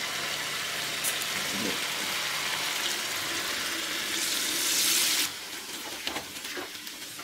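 Theeyal curry simmering and sizzling in a clay pot with a steady hiss; about four seconds in, liquid is poured into the pot for a second or so, then a wooden spoon stirs the thick coconut-paste gravy with a few soft scrapes.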